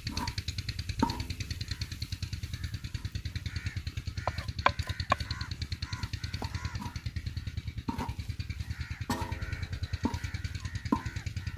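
Wooden spatula stirring and scraping mutton keema on an iron tawa griddle, knocking sharply against the metal several times, over a steady fast pulsing throb, with a few crow caws in the background.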